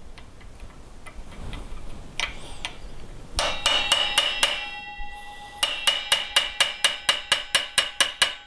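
Hammer tapping a cold chisel to crimp the metal rim of a washing machine transmission's clutch assembly, so that it stays retained. The quick light blows come about six a second, in a short run and then, after a brief pause, a longer one, each ringing metallically.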